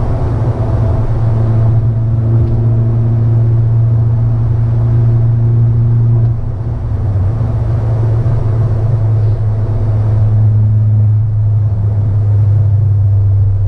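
Peugeot 308 THP's turbocharged 1.6 four-cylinder with a modified exhaust, heard from inside the cabin while driving: a steady low exhaust drone that dips briefly about six seconds in and then comes back.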